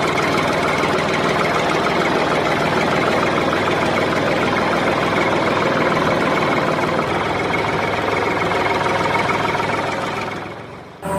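Engine of a homemade mini tractor running steadily, fading away about a second before the end.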